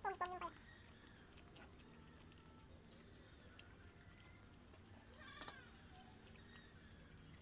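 An animal calling twice in a quiet room: a falling cry right at the start and a shorter call about five seconds in.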